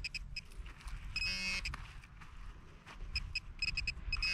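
Handheld metal-detector pinpointer beeping in quick bursts of a high tone as it is probed into a dug hole, signalling metal close by: beeps at the start, a short buzz about a second in, then faster beeping again from about three seconds in. Soil rustles and scrapes under the hands beneath it.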